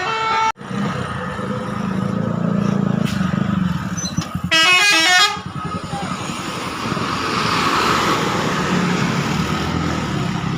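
A bus's multi-tone 'telolet' horn plays a quick stepping run of notes for under a second, about halfway through, over the steady rumble of a heavy vehicle engine.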